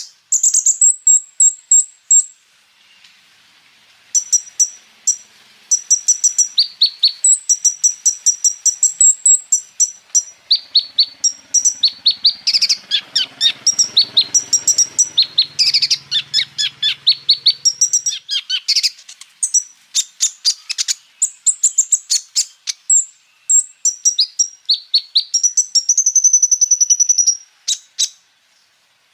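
Kolibri ninja (konin) sunbird singing a fast, high-pitched song: runs of sharp, rapidly repeated chips and trills broken by brief pauses, with phrases borrowed from other birds.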